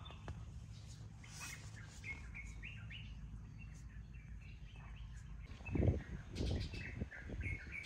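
Small birds chirping, many short repeated chirps over a steady low rumble of outdoor background noise, with a few low thumps about six seconds in.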